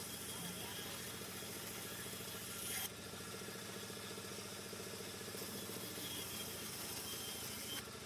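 A woodworking machine's motor running steadily with a fast, even mechanical rattle and hiss. The sound drops abruptly about three seconds in and again near the end.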